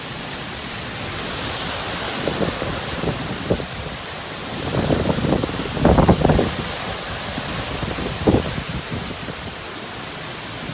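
Typhoon wind gusting and buffeting the microphone in irregular low rumbles over a steady hiss of wind and rain, with stronger gusts around the middle.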